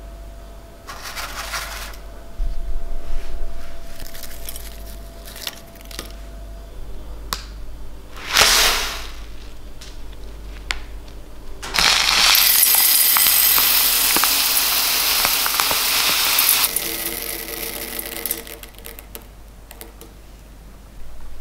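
Dry red lentils rattling and pattering as they are poured onto a hard surface and into a stainless steel pot. One long steady pour runs for about five seconds midway, with lighter, shorter rattles and rustles of handling before it.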